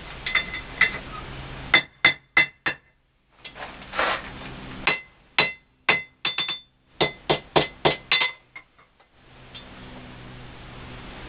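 Hand hammer striking hot horseshoe steel on an anvil: about twenty quick blows in uneven runs with a short pause, each giving a bright metallic ring.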